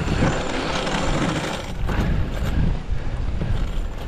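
Dog sled running over a packed snow trail: a steady scraping rush of the runners on snow with a low rumble, jolted by bumps near the start and again about two seconds in.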